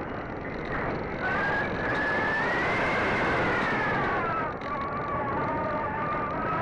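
Electric motor and propeller of a Sky Surfer radio-control glider whining in flight, the whine fading briefly about a second in, then rising in pitch to a peak midway and falling away again. Steady wind rush on the microphone underneath.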